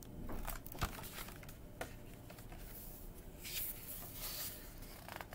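Paper rustling and light knocks from handling a hardcover picture book as its page is turned, with two sharp clicks about one and two seconds in.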